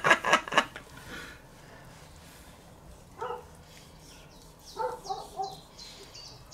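A dog barks once about three seconds in, then three or four times in quick succession a little later, while small birds chirp. A short burst of laughter comes right at the start.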